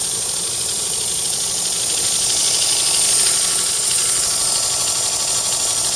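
Knife blade being ground on a running 1x42 belt grinder: a steady, high hissing grind, swelling slightly a few seconds in.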